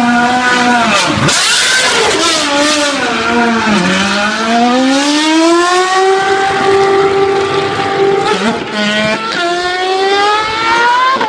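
Sauber C31 Formula One car's V8 engine running and revving as the car pulls away down the pit lane. The pitch falls and rises several times, holds fairly steady for a few seconds in the middle, then climbs again near the end.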